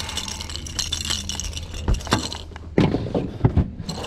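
Metal pliers clinking on a topwater lure's hooks, with the lure rattling, as a speckled trout is unhooked; then a few sharp knocks about two to three and a half seconds in as a plastic cooler lid is lifted.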